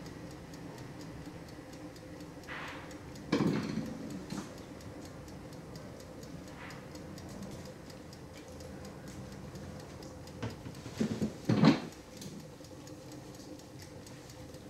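Facial steamer running with a steady low hum and faint regular ticking. A sudden bump about three seconds in and a quick cluster of knocks near eleven seconds are the loudest sounds.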